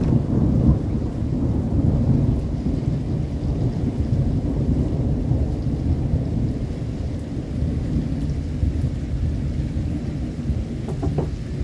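Rolling thunder, a low continuous rumble that eases off slightly as it goes, with rain falling.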